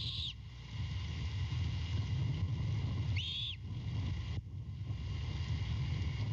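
Great horned owlet giving two short, high, raspy begging screeches about three seconds apart, over a steady low rumble.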